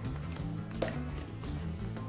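Background music with steady low notes, and one sharp tap a little under a second in from cards handled on the table.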